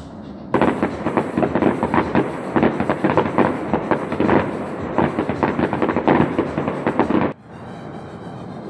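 Fireworks display: a dense, continuous run of rapid bangs and crackles that starts about half a second in and cuts off suddenly about seven seconds in.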